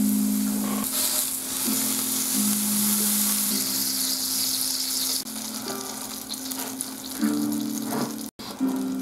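Wild boar meat sizzling on a hot tabletop grill plate, the sizzle strongest in the first half and dropping off sharply about five seconds in as the meat is lifted off. Background music with sustained low notes plays underneath.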